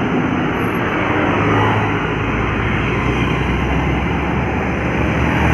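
Steady roadside traffic noise: engines and tyres of passing vehicles, with a heavy engine's low note strongest through the middle.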